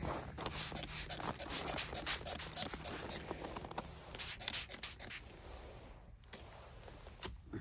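Close scratching and rustling of winter clothing and gloves as the wearer moves, a quick irregular run of scrapes that thins out and quietens after about five seconds.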